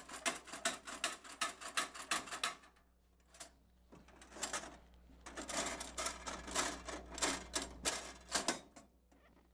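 Steel shelves and latches of a Laurel drop-shelf vending machine clicking and clattering as they are worked by hand: a rapid run of metal clicks, a pause about three seconds in, then a second run that stops shortly before the end.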